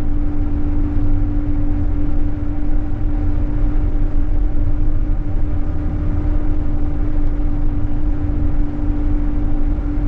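Scania K420EB coach's straight-six diesel and tyre rumble heard from inside the passenger cabin while cruising at a steady speed. There is a steady drone with a constant hum over a low road rumble.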